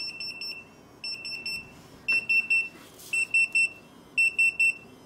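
Retekess TD173 restaurant guest pager alerting after being called: a high-pitched electronic beep repeating in bursts of about four quick beeps, roughly once a second. A light knock a little past halfway as the pager is set down.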